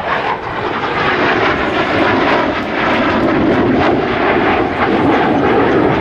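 Royal Netherlands Air Force F-16 fighter's jet engine heard from the ground during a display pass: a loud, steady jet noise with no let-up.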